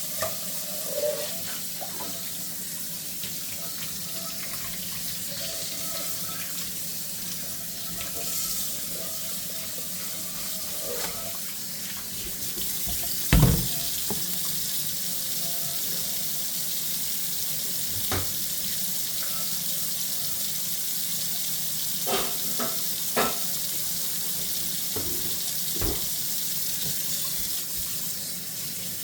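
Tap running steadily into a sink during hand dishwashing, with occasional knocks of dishes against each other or the sink; the loudest knock comes about halfway through, and a small cluster follows later.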